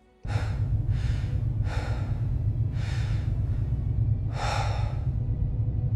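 AI-generated clip soundtrack of a man breathing slowly and audibly, about five breaths, over a steady low hum.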